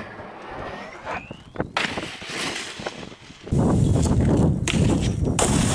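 Snowboard hitting and sliding along a steel handrail: a sharp hit as the board lands on the rail, a scraping ring that falls in pitch, then scattered knocks and thuds. About three and a half seconds in, a loud steady rushing noise sets in.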